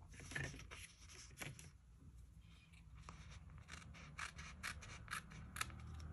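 Faint short scratchy strokes of paper and stickers being handled on a planner page. There are a few in the first two seconds, then a quick run of short rubbing strokes, about four a second, in the second half.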